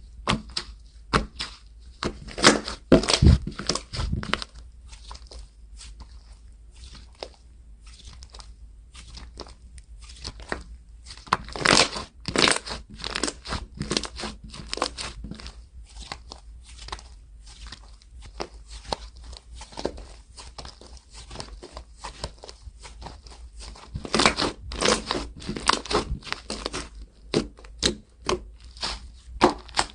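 Slime being squeezed, stretched and pressed by hand, crackling and popping in irregular bursts of sharp clicks, with denser clusters near the start, in the middle and near the end.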